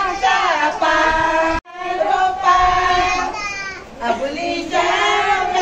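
A woman singing ovi, traditional Malvani wedding folk songs, in long held notes. The sound cuts out completely for a split second about one and a half seconds in, then the singing goes on.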